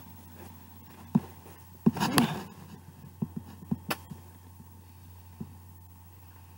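Scattered soft knocks and rustles of a person shifting and stroking a cat held close, with a louder cluster about two seconds in and a few more around three to four seconds, over a steady low hum.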